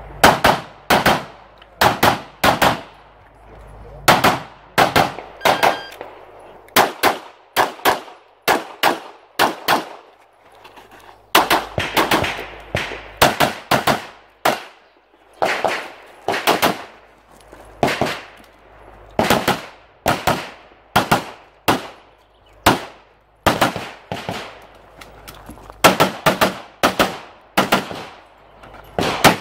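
CZ Shadow 2 9mm pistol firing rapid strings of shots, mostly in quick pairs, with short pauses between the strings.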